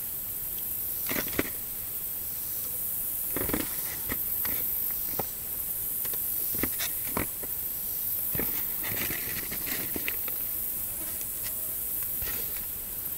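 A steady high hiss with scattered light clicks and taps as pieces of cauliflower mushroom are dropped into a small skillet.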